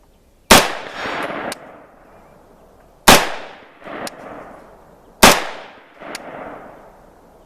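AR-15 rifle fired three times, single shots a little over two seconds apart. Each shot is followed about a second later by a fainter sharp crack.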